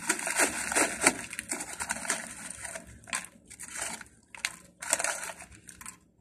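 Plastic snack bag of corn chips crinkling and rustling as a hand reaches in and rummages for chips, with irregular crackles that thin out into separate bursts about halfway through.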